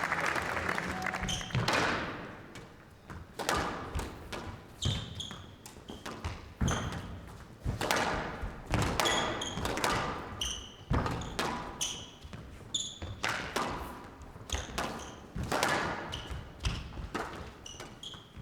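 Squash rally on a glass court: the ball cracking off racquets and walls at an irregular pace, with players' shoes squeaking on the court floor. Applause fades out in the first couple of seconds.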